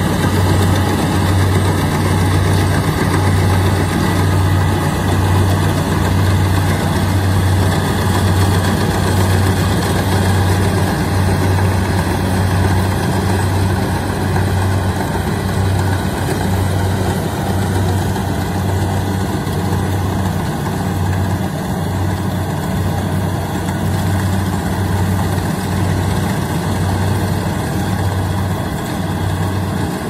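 Kubota DC-70 Plus rice combine harvester running steadily while cutting and threshing: the diesel engine and machinery keep up a constant drone with an even, low throb.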